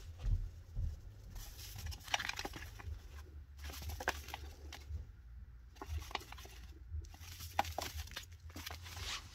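Chinchilla rolling in bath dust in a metal pan: bursts of scratchy rustling with light clicks, stopping briefly about halfway through before starting again.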